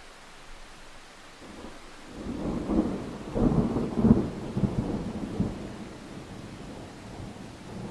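A thunderclap rolling over steady rain. The rumble builds about two seconds in, peaks in several sharp cracks over the next couple of seconds, then fades, leaving the hiss of the rain.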